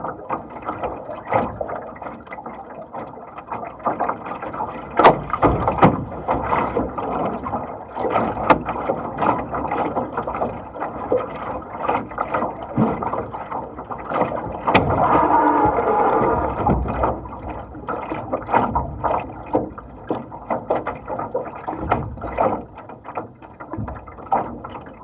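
Water slapping and splashing against the hull of a Laser sailing dinghy under way through chop, with frequent irregular slaps over a steady wash. A louder rush of water comes about two-thirds of the way through.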